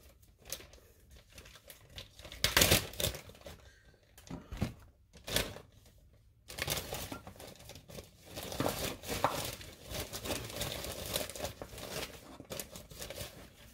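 A clear plastic zip-top bag crinkling and rustling in the hands. There are separate rustles in the first half, the loudest about two and a half seconds in, then almost continuous crinkling from about halfway.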